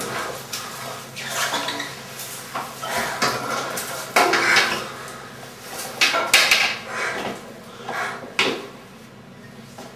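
Irregular clattering and clinking of hard objects, in a string of short bursts that die down near the end.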